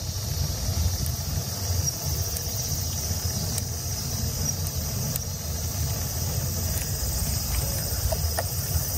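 Wind rumbling steadily on the microphone of a camera carried on a moving bicycle, with a steady high hiss over it.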